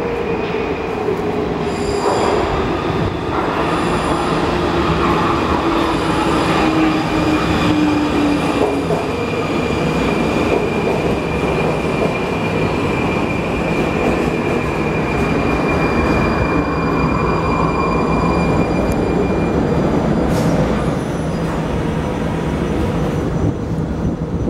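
Prague metro 81-71M train braking into the station. Its motor whine falls steadily in pitch over the first nine seconds or so, over a steady high squeal that stops about twenty seconds in, and then the train stands running at the platform.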